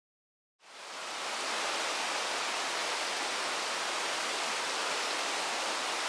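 Shallow river rushing over stones: a steady even hiss of running water that fades in from silence about half a second in.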